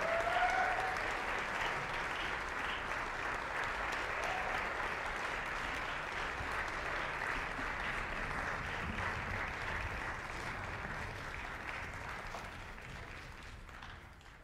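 Audience applauding in a concert hall, a steady clatter of clapping with a short whoop right at the start. The applause fades away over the last few seconds.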